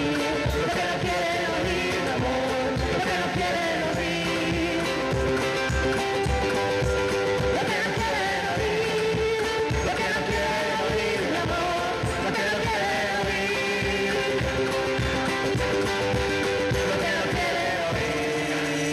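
Live acoustic song: a ukulele strummed over a steady beat of low knocks, with a man and a woman singing a held melody.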